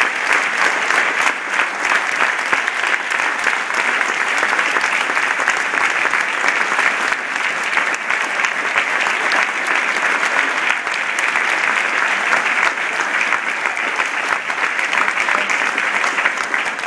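A large theatre audience applauding: many hands clapping in a dense, steady wash with no breaks.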